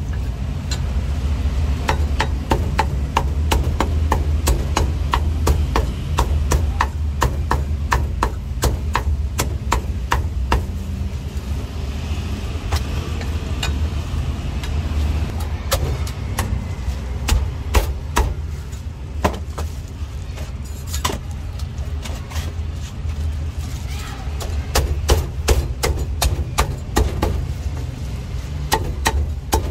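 Heavy cleaver chopping through a bone-in roast duck onto a thick wooden chopping block: quick runs of sharp strikes, with fewer strikes for a few seconds in the middle. A steady low hum runs underneath.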